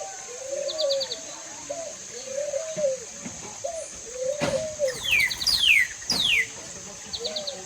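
Doves cooing in a series of low, rounded notes about a second apart, with smaller birds chirping: several quick falling whistles and short trills, mostly a little past the middle.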